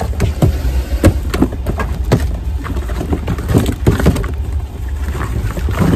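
Shoes being handled and sorted in a store bin or cart: a string of knocks, thuds and clatters as they are picked up and set down, over a steady low rumble.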